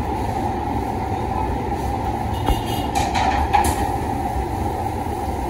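A steady machine drone with a humming band and a low rumble underneath, with a few faint clicks between about two and a half and three and a half seconds in.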